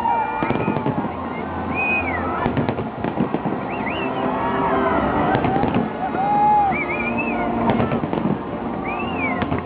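New Year fireworks going off in a dense series of bangs and crackles, mixed with people's voices.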